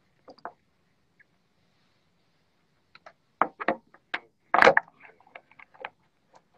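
Handling noise close to a phone's microphone: a couple of faint clicks, then from about three seconds in a run of short sharp clicks and knocks, the loudest a longer knock with a rustle a second or so later.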